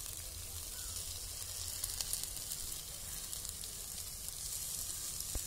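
Suji upma sizzling softly in a hot non-stick kadai: a steady frying hiss with a few faint ticks.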